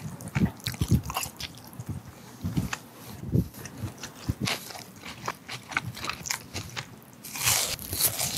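Close-miked eating sounds: soft chewing for several seconds, then a loud crisp crunch near the end as a bite is taken from a fried pork cutlet whose breading is still crispy.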